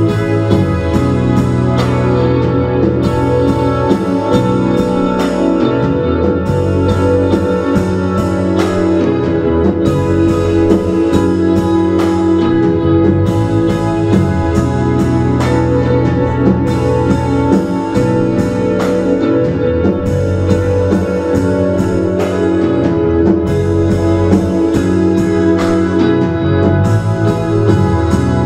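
Live band playing: electric guitars, bass, keyboard and a drum kit, a dense, steady wash of sustained chords over a regular drum beat.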